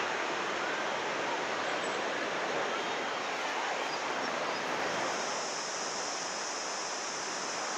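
Steady wash of ocean surf on a sandy beach, an even hiss with no breaks.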